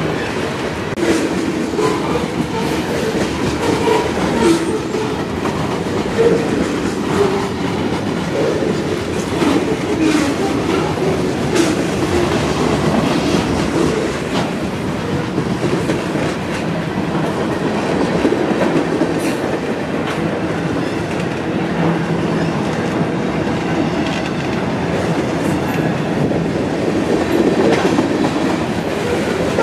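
Freight train cars rolling past at steady speed: a continuous rumble of steel wheels on rail, with scattered sharp clicks.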